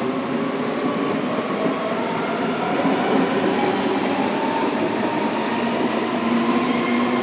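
Red DB S-Bahn electric multiple unit pulling away from the platform, its traction motors whining in several steady tones that slowly rise in pitch as it gathers speed, over wheel and rail noise. About two-thirds of the way in, a high wheel squeal joins.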